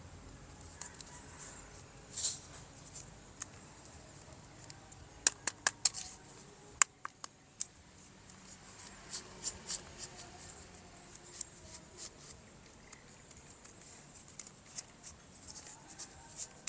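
Small sharp clicks and light scratching from handling plastic toy parts and packaging, with a quick run of clicks about five seconds in and a single sharp click near seven seconds.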